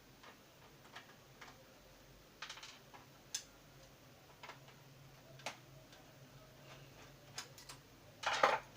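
Scattered small clicks and taps of a screwdriver and a sheet-metal shield being worked off a printer touch panel's main board, with a louder clatter near the end.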